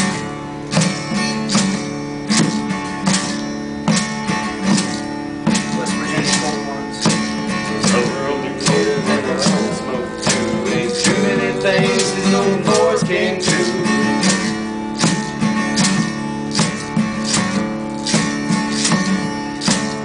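Acoustic guitar strumming a country tune, with sharp percussive beats on improvised kitchen instruments keeping a steady time.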